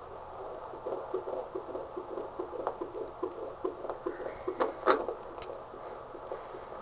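Fetal heartbeat at 17 weeks heard through a doppler monitor, a fast even pulsing at about two and a half beats a second. A few louder scratchy crackles come about two thirds of the way in.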